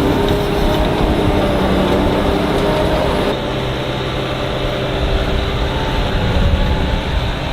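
Heavy harvesting machinery running steadily, a dense mechanical rumble with a few held whining tones. The sound shifts abruptly and drops slightly in level about three seconds in.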